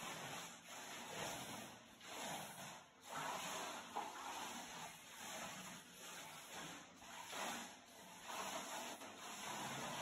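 Quiet swishing and lapping of swimming-pool water around a slowly swimming person, coming in soft swells about once a second.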